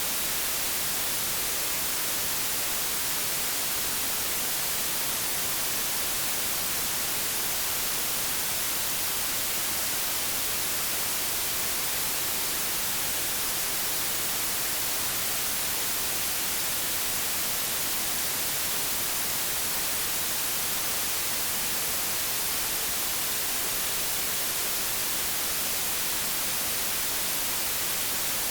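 Generated white noise: a steady, even hiss across all pitches, strongest in the highs, that never changes in level.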